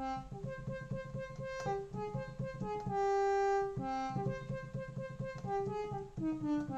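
Behringer Crave analog synthesizer playing a short melody on a bright, brassy sawtooth patch shaped to sound like a trumpet. It is a run of separate notes at changing pitches, with one longer, louder held note near the middle.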